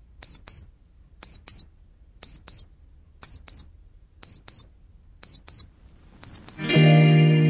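Digital alarm clock beeping: a high-pitched double beep about once a second, seven pairs. Soft, sustained background music comes in near the end.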